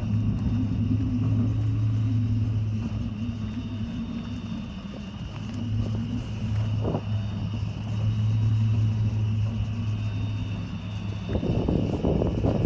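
Oil well pumpjack running: a steady low electric hum from its drive motor, swelling and easing as the beam goes through its stroke. A rough rustling noise comes in near the end.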